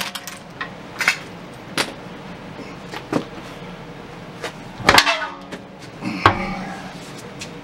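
Scattered metal knocks and clanks from hand tools and parts being handled at a car wheel, about half a dozen separate hits, the loudest about five seconds in, with a brief ring after it.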